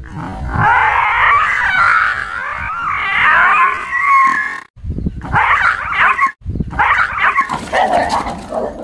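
A dog whining and yelping with high, wavering cries, in three stretches broken by brief gaps.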